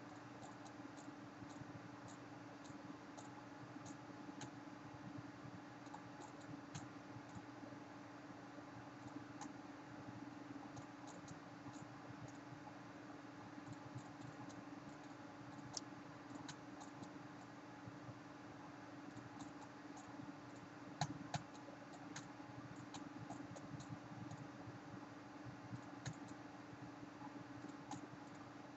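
Faint room tone: a steady low hum with scattered light clicks, and a couple of louder clicks about three-quarters of the way through.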